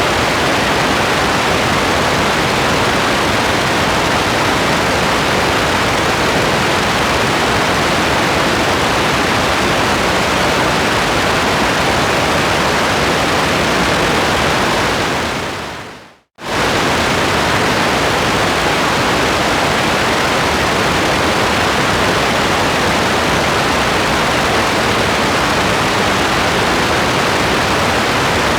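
Steady, dense rain hiss with no breaks in the patter. About halfway through it fades away to silence over a couple of seconds, then comes straight back at full strength.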